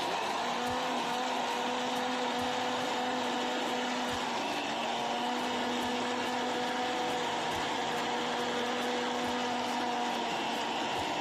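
Countertop blender switched on and running at a steady speed, its motor whining as it blends a milk drink. It starts abruptly right at the start and runs evenly throughout.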